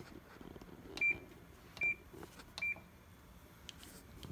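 Three short, high beeps about a second apart from the control panel of a Healthy Chef combination steam-convection microwave oven as its buttons are pressed to set the bake.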